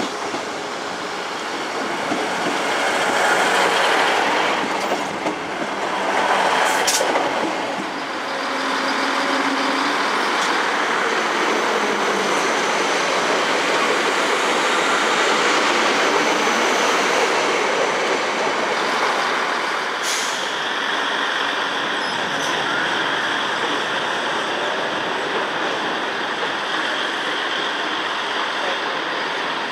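A train running at a railway station: steady rumble and rail noise, loudest in the first several seconds, with sharp clicks about seven and twenty seconds in.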